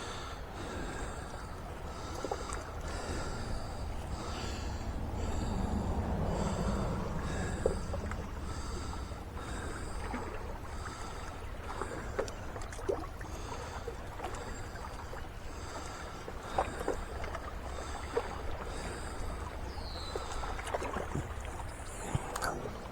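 Outdoor ambience by the water: a steady low rumble of wind or water, a high-pitched chirp repeating a little more than once a second, and a few faint scattered clicks.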